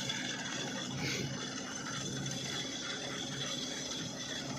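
Combine harvester running steadily, with a dense fast rattle of its working parts under a constant high whine.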